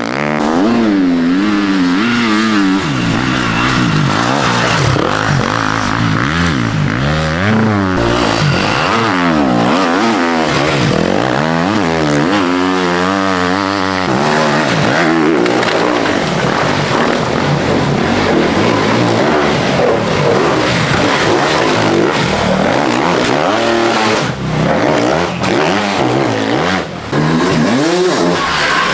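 Enduro dirt bike engines revving hard as riders pass one after another, the pitch climbing and dropping again and again with throttle and gear changes.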